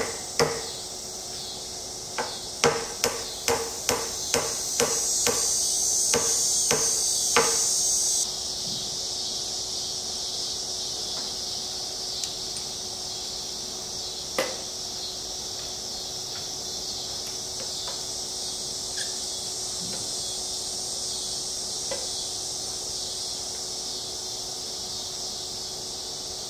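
Small hammer tapping steel pins down through the holes of a knife's handle scales: about a dozen sharp, light strikes, roughly two a second, stopping after about seven seconds. A few faint clicks follow.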